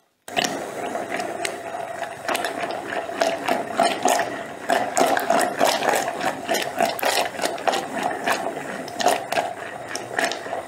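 Hand-held immersion blender switching on and running in a tall beaker of raw lamb, olive oil and eggs. Its steady motor hum carries a constant irregular clatter and knocking as the blade chops through the thick mixture, which is hard to blend with a hand blender.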